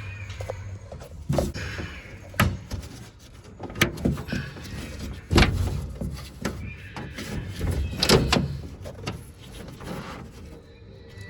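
Irregular sharp clicks and clunks from a van door's latch and handle assembly being worked on and taken apart, the loudest knock about five seconds in.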